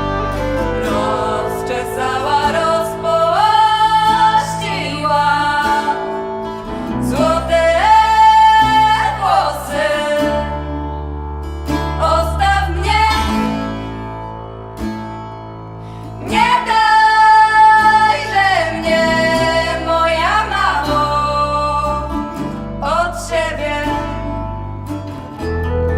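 Background music: a song with a sung melody in phrases over guitar and bass.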